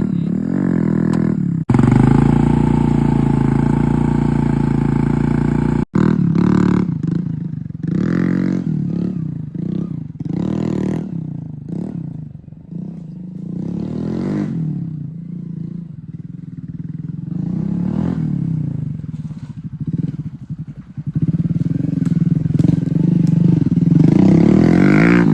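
Motorcycle engine and exhaust: a few seconds of steady running at raised revs, then an abrupt cut to a series of throttle blips, each rev rising and dropping back.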